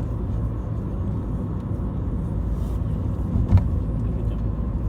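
Steady low rumble of a car on the road, with one short knock about three and a half seconds in.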